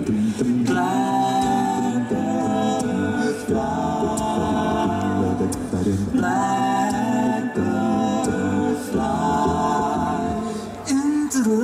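Male a cappella vocal group singing amplified close harmony, several voices holding chords in phrases that start again every two to three seconds.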